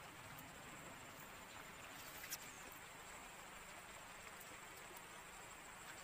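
Near silence: faint outdoor hiss with a steady high insect buzz, and a single sharp click about two seconds in.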